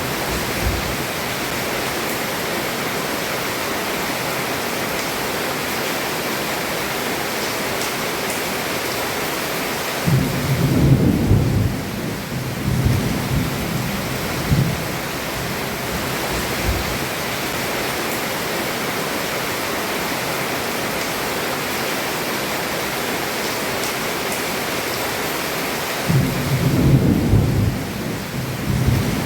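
Heavy rain pouring steadily onto a roof. Thunder rolls in twice, a low rumble swelling about ten seconds in and again near the end.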